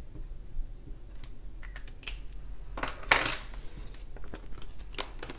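Hands handling a cash binder and dollar bills: light clicks and taps of paper and clear plastic pockets, with a longer rustle of paper sliding about three seconds in.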